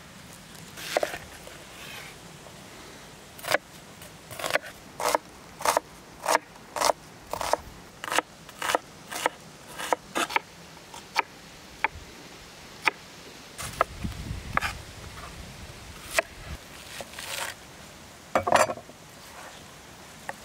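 Large kitchen knife chopping onion on a wooden cutting board: a steady run of sharp chops, about one and a half a second, then a few scattered cuts with one louder chop near the end.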